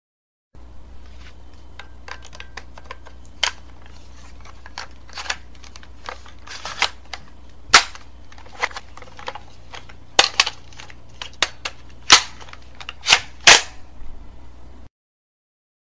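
Metal parts of a firearm being assembled: an irregular series of clicks and sharp clacks as pieces slide and snap into place, with the loudest clacks coming in the second half, over a low steady hum.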